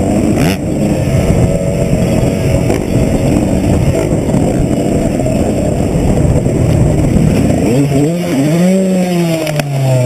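Dirt bike engine running under load, heard from the bike itself. About three-quarters of the way in, its note comes through clearly, rising in revs and then starting to drop near the end.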